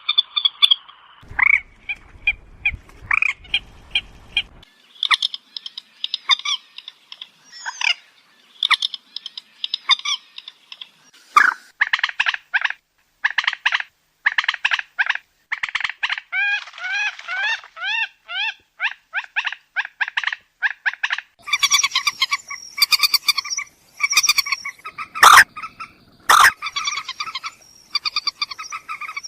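Moorhen calls (trích rẽ): rapid runs of short, evenly repeated notes in bursts, with some upward-curving notes about halfway through. Two sharp clicks come near the end.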